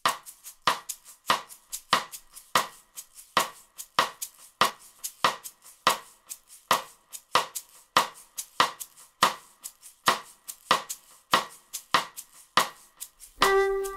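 A steady beat of sharp percussive clicks, about three a second, alternating stronger and weaker strokes, as the intro of background music. Plucked and bowed string notes come in near the end.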